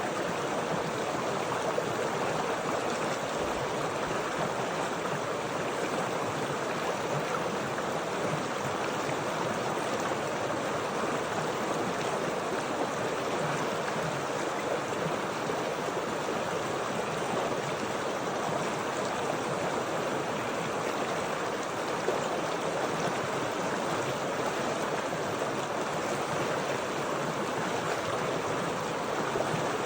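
Running water making a steady, even rushing sound, unchanging throughout.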